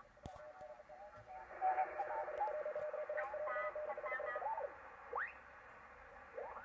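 Audio from a homebuilt superheterodyne shortwave receiver being tuned across the 80 m amateur band. A steady heterodyne whistle and mistuned single-sideband voices come through as garbled, pitch-shifted chatter, loudest in the middle. Whistles glide up and down as the tuning moves off the station.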